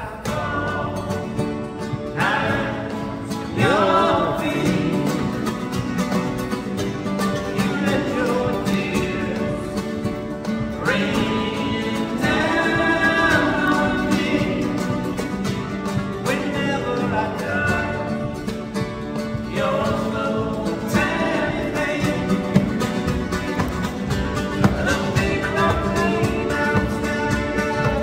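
Live acoustic music: two nylon-string guitars playing together, strummed and picked, with a man singing the melody over them.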